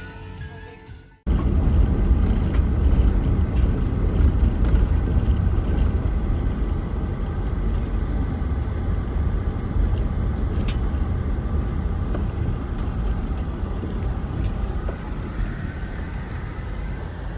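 Guitar music that cuts off about a second in, then a car driving: a steady, loud road and engine rumble heard from inside the vehicle, fading near the end.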